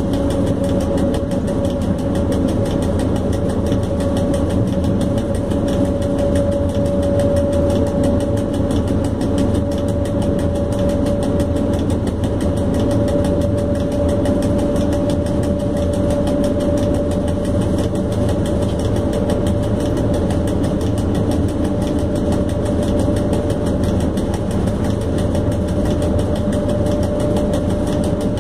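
Steady running noise inside the cab of an ET22 electric freight locomotive under way: a constant low rumble of motors and blowers with a steady whine that creeps slightly higher in pitch.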